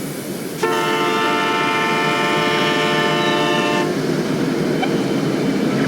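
Train horn sounding one long chord-like blast of about three seconds over the steady rumble of a train, which carries on after the horn stops.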